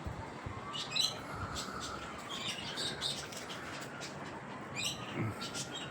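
Birds chirping in short high bursts, about three times, over a faint slow rising-and-falling wail in the background.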